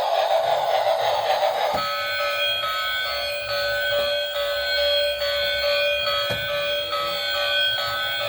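Electronic siren sound from a toy emergency vehicle: a few steady, shrill tones that switch between pitches in a repeating pattern, taking over from a hissier sound just under two seconds in.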